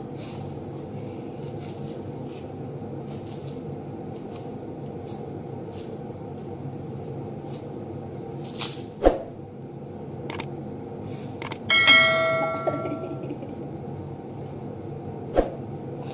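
Red onions being peeled with a knife: light clicks and crackles of the knife and dry papery skins, several sharper clicks, and one bright metallic ring about twelve seconds in that fades over a second, over a steady background hum.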